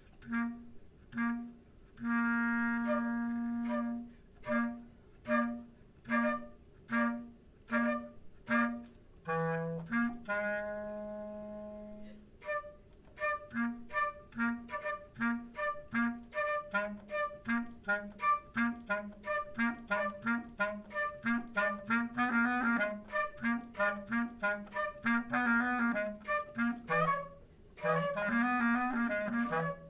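Flute and clarinet playing a duet of short, detached notes in time together, the clarinet low and the flute above. Both hold a long note about two seconds in and again about ten seconds in. The notes then come quicker and busier in the second half.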